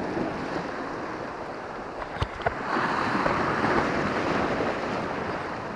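Sea waves breaking and washing over a rocky shore, the surf swelling louder a little past halfway. Two sharp knocks come just before the swell.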